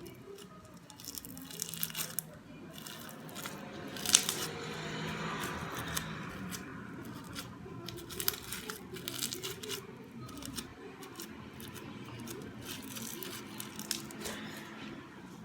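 Hands squishing and stretching slime mixed with polystyrene beads, giving irregular crackling and popping, with one sharper crack about four seconds in.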